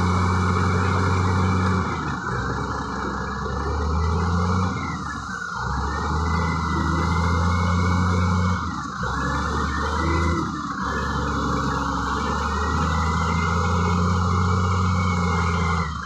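Heavy diesel engine running, with a high whine that rises and falls over a few seconds at a time. The sound drops out or changes abruptly a few times.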